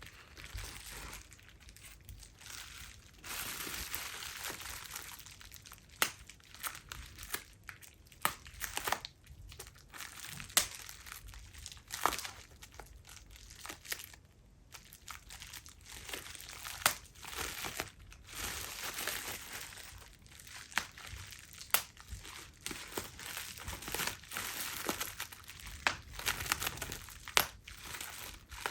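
Plastic bubble wrap being crinkled and handled close to the microphone, with irregular sharp pops as single bubbles burst, some pops much louder than the rustling.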